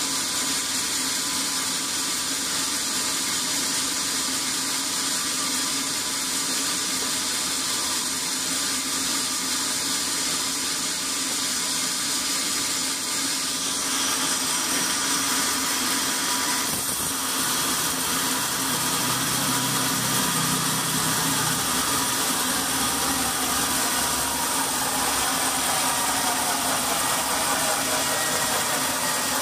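Band sawmill with a rail-mounted log carriage running steadily, its blade sawing lengthwise through a squared log. It grows louder about halfway through, with a shifting whine in the last few seconds.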